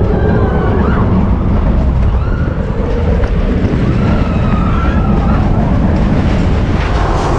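Roller coaster train running through a dark section of track, a loud steady rumble with a few wavering high tones rising and falling over it.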